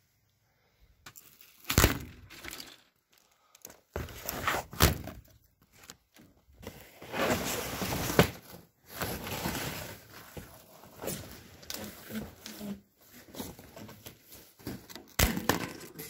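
Handling of a cardboard-sided shipping crate on a wooden pallet during unpacking: a few sharp thumps and knocks, stretches of rustling and scraping, and a crisp snap near the end, as the plastic strapping is cut.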